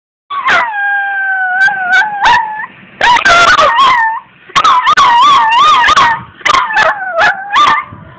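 Chihuahua puppy howling: four long howls in a row, the pitch wavering up and down in the middle ones.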